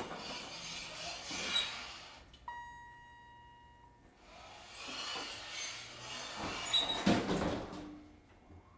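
Older elevator doors sliding with rattles and clunks. About two and a half seconds in comes a single chime tone lasting over a second. Then the doors slide again and shut with a heavy thud near the end.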